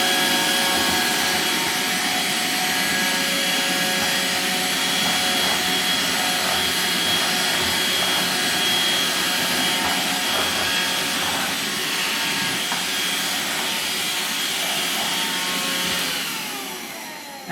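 Makita CL100DZ 10.8 V cordless handheld vacuum cleaner running steadily with a motor whine and airflow hiss, drawing dust and bits off a workbench through its short nozzle; its suction is weak. Near the end it is switched off and winds down.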